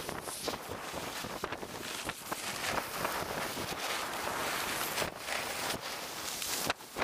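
Wind rushing over the microphone of a camera carried by a skier moving downhill, with the hiss and scrape of skis on packed snow. The level dips briefly near the end.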